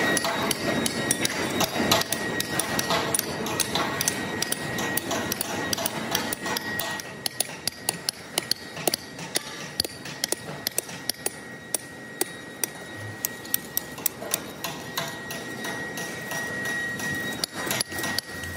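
Metal being struck again and again: irregular sharp taps and clanks, several a second, over steady workshop noise and a thin high whine. It is busier and louder for the first seven seconds or so, then thins to sparser, sharper knocks.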